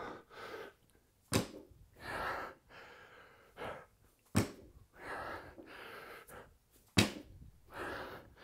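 Barbell deadlift reps with bumper plates: the plates knock on the floor three times, about three seconds apart, as the bar is set down each rep, with heavy breathing between the knocks.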